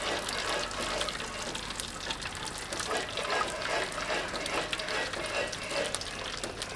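Melted wax poured from a pot through a cloth strainer into a tub of water, a steady splashing pour.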